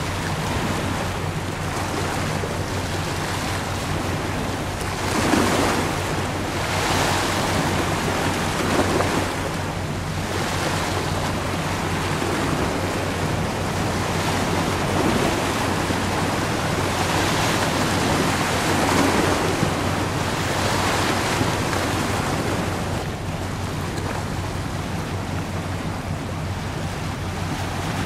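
Wind buffeting the microphone, swelling and easing in gusts every few seconds, over a steady low hum.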